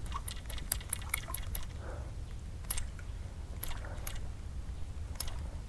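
Faint, irregular ticks and small splashes of a Lizard Fishing Buster topwater stick lure being twitched across the water surface.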